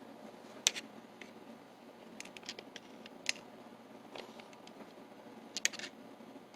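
Scattered sharp clicks and taps of metal parts of a Dorma mortise lock being handled as its case cover is worked into place, with the loudest click about two-thirds of a second in and another cluster about a second before the end.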